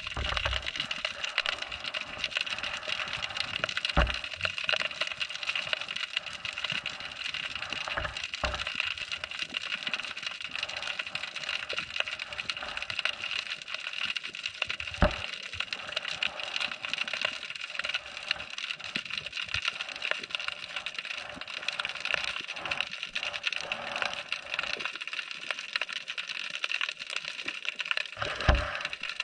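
Dense, steady crackle of countless tiny clicks heard underwater through an action camera's housing, typical of snapping shrimp around barnacle-covered bridge pilings. A few louder knocks stand out, one about four seconds in, two close together near eight seconds, one mid-way and one near the end.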